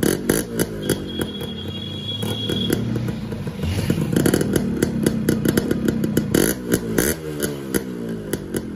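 Yamaha RX100's two-stroke single-cylinder engine revved up and down by hand through an exhaust muffler packed with glass wool, the exhaust note crossed by many sharp crackles. The revs ease off near the end.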